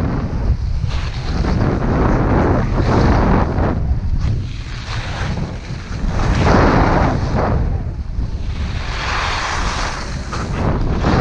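Wind rumbling on the microphone of a skier going downhill, with the hiss of skis scraping across packed snow swelling and fading every few seconds as he turns.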